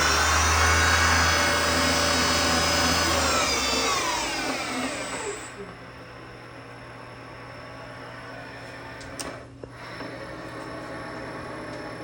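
The spindle of a TRAK DPM CNC bed mill runs at speed with a loud whine, then spins down, its pitch falling until it stops about halfway through. A quieter steady hum from the machine remains afterwards, with a faint click later on.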